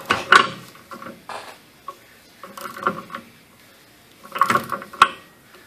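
Socket and inch-pound torque wrench clinking on the pinion nut of a Ram 1500 9.25" rear differential as the pinion is turned over to read its turning torque, checking the pinion bearing preload. Scattered metallic clicks and rattles with short pauses, and one sharp click about five seconds in.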